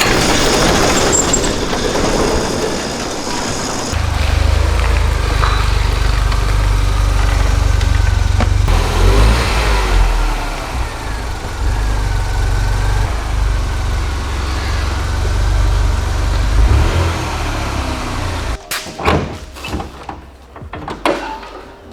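Turbocharged Mini Cooper S (R56) 1.6-litre four-cylinder engine on its stock downpipe, running under way with road noise; the engine's low rumble jumps up about four seconds in, a whine glides in pitch around the middle, and the sound falls away near the end.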